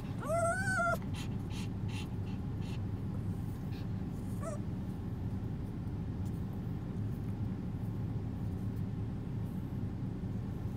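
Small dog whining while being tickled with chopsticks: one rising, wavering whine about a second long near the start, then a brief faint whimper around the middle. A steady low hum runs underneath.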